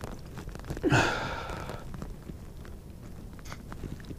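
A man's single breathy sigh about a second in, falling in pitch as it starts, over small clicks and handling noise.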